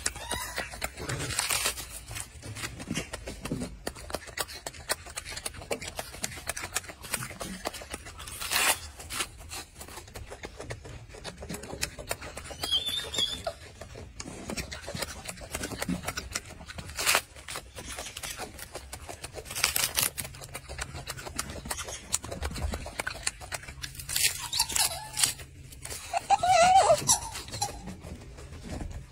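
A golden snub-nosed monkey eating lettuce close to the microphone: irregular crisp crunches, snaps and rustles of leaves being torn and chewed.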